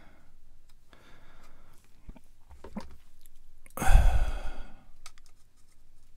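A few faint clicks of plastic cutters and styrene parts being handled, then a loud breathy exhale about four seconds in.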